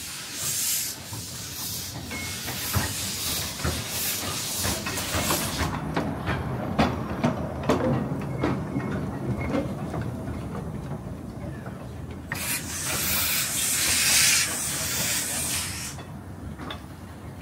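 Small narrow-gauge steam locomotive hissing steam in a string of short bursts, then clanking and knocking, then letting off one long hiss of steam about twelve seconds in that lasts some four seconds.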